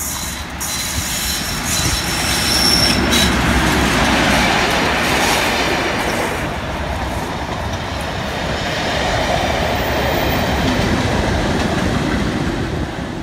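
A locomotive-hauled test train passing close by, with a Class 37 diesel at each end. The leading loco's English Electric V12 engine and the wheels on the rails are loudest a few seconds in, with a brief high wheel squeal. The noise eases as the coaches pass, then builds again as the rear Class 37 goes by near the end.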